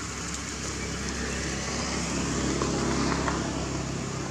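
A motor vehicle's engine hum, swelling to a peak about three seconds in, then easing off.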